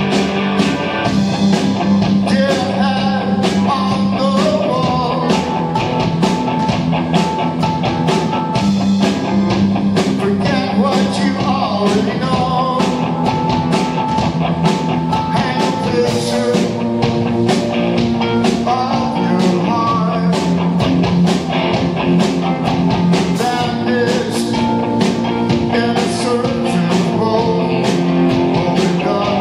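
Live rock band playing: electric guitar, keyboards and a drum kit keeping a steady beat, with a man singing lead.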